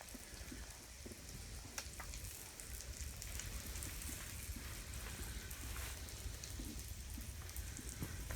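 Floured perch frying in a pan: a faint, steady crackle with scattered small ticks.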